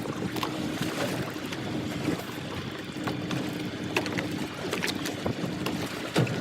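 A boat's engine runs steadily at sea, a low hum under wind and water noise, with a few light knocks scattered through.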